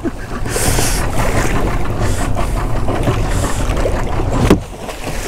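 A boat under way with its motor running low and steady, water rushing and splashing along the hull, and wind on the microphone. A short cry comes near the end.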